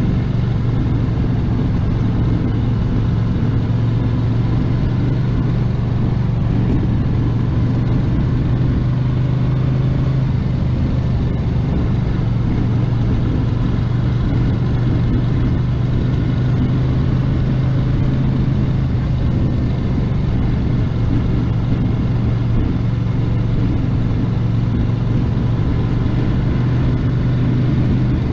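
1982 Honda GL500 Interstate's water-cooled V-twin engine running steadily under way, holding an even pitch at a constant road speed.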